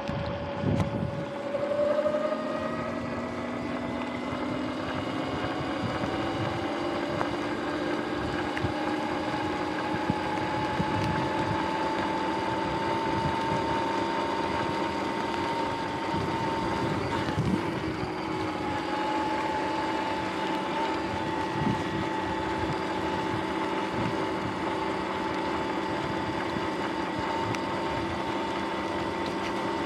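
Sur-Ron X electric dirt bike's motor whine rising in pitch over the first several seconds as the bike accelerates, then holding nearly steady at cruising speed. Under it is tyre hiss on a wet road, and there is wind on the microphone.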